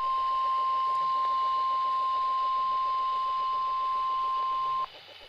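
NOAA Weather Radio warning alarm tone: one steady high-pitched tone over radio static, cutting off abruptly near the end. It signals that an emergency alert broadcast, here a tornado watch, is about to be read.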